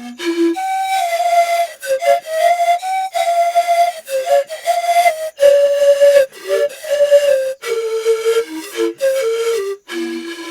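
A solo melody played one note at a time on a flute-like wind instrument, with quick changes of pitch and short breaks between phrases.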